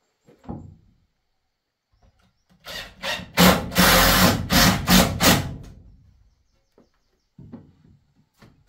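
Cordless drill running into a wooden shelf for about three seconds in several short pulses. Lighter wooden knocks come before it and again near the end.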